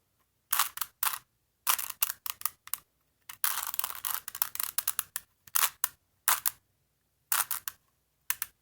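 Plastic 3x3 Rubik's Cube being turned by hand: quick bursts of clicking as the layers snap round, with a denser run of clicks about halfway through.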